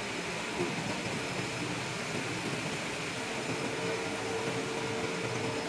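Steady mechanical running noise with a hiss. A steady mid-pitched whine comes in about three seconds in and holds.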